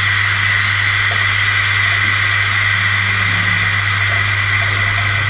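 Brass pressure relief valve on a pressurised solar water heater tank, opened by hand and hissing steadily as it vents pressure from the tank, with a steady low hum underneath.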